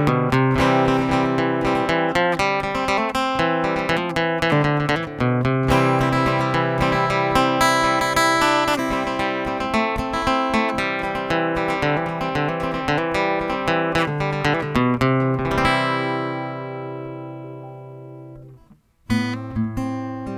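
Ibanez EW20ZWE acoustic-electric guitar played plugged in through its B-Band UST under-saddle pickup and SRTc preamp, with notes following one another quickly. About three-quarters of the way in, a chord is left to ring and fades away almost to nothing. Playing starts again near the end.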